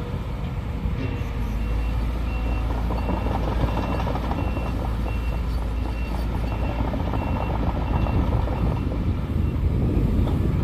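Sumitomo SH210 excavator's diesel engine running steadily, with a reversing alarm beeping about every half second, starting about a second in and stopping near the end.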